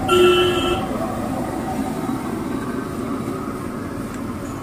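Steady street traffic noise, with a short vehicle horn toot right at the start.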